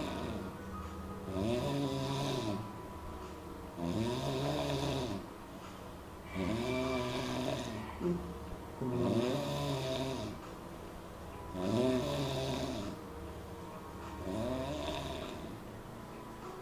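A person snoring six times, about every two and a half seconds. Each snore is a pitched, buzzing tone that rises and then falls over about a second.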